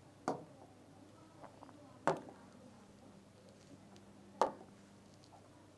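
Three sharp taps of a stylus on an interactive whiteboard screen, about two seconds apart, each dying away quickly.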